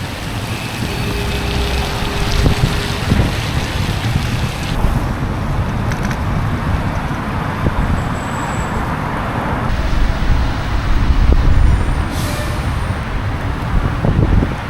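Road traffic in a city street on a wet road, heard from a moving bicycle: motor vehicles passing over a steady low rumble.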